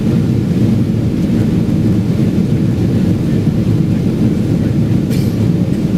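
Cabin noise inside a Boeing 777-200 climbing out after takeoff: a loud, steady low rumble of engines and airflow. A brief faint tick about five seconds in.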